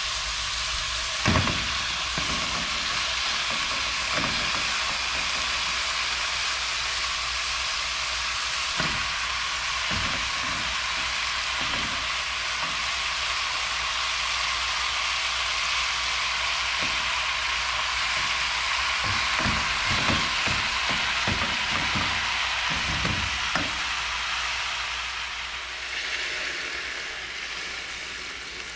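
Chopped vegetables and whole fish sizzling in dendê palm oil in a pan on a gas stove, a steady hiss with scattered soft knocks as the fish are laid in and handled with a spatula. Near the end the sizzling dies down as water is poured into the pan.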